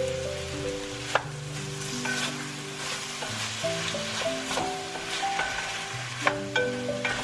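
Food sizzling in a pan as it is stirred, with a utensil clicking against the pan a few times, over soft background music.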